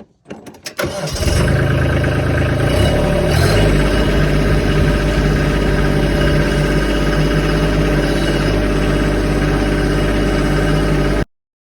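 Kubota LX2610 compact tractor's three-cylinder diesel engine cranking over and catching about a second in, revving briefly, then running steadily. The sound cuts off suddenly near the end.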